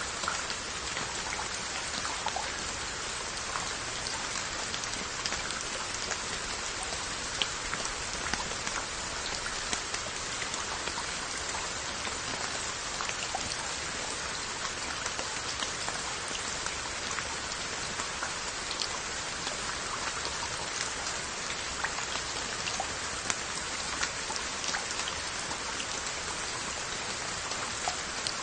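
Steady rain falling on glazed earthenware crocks: an even hiss of rainfall with many small, scattered drop ticks on the jars and their lids.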